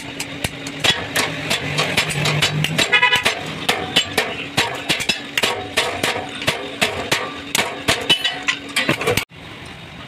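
Rapid, irregular sharp knocks and taps on metal, several a second, with a short horn-like tone about three seconds in. The sound drops away abruptly near the end.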